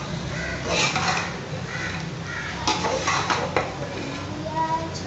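Long metal ladle scraping and clanking against a wide metal pot as mutton and spinach curry is stirred and fried, in irregular bunches of strokes. The clatter comes at the frying-off stage, with the cooking water almost dried.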